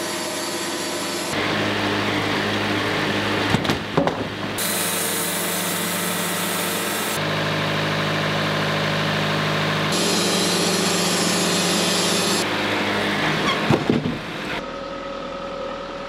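Wood-Mizer portable band sawmill running: a steady engine drone with the saw and hydraulics working. Its tone changes abruptly several times as the footage jumps between clips, with a couple of sharp knocks about four seconds in and again near the end.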